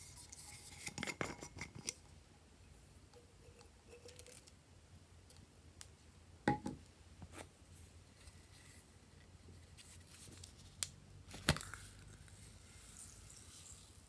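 Plastic toy containers being handled and opened over a glass dish: light plastic clicks and a few sharp taps and knocks. Near the end, a soft patter as small foam beads are poured out of a plastic cup onto the slime in the glass dish.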